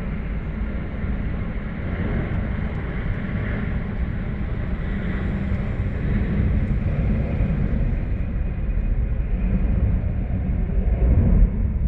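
Airbus BelugaXL jet taking off, its twin Rolls-Royce Trent 700 turbofans at takeoff power: a steady jet rumble that grows slowly louder.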